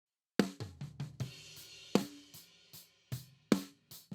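Recorded drum kit playing a groove, starting about half a second in: kick and snare hits with hi-hat and a cymbal wash. It is played back through the Waves API 2500 compressor plugin, which is compressing it by about 6 dB.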